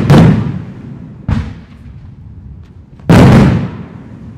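Aerial fireworks bursting in loud bangs: a big one at the start, a smaller one about a second in, and another big one about three seconds in, each dying away over about a second.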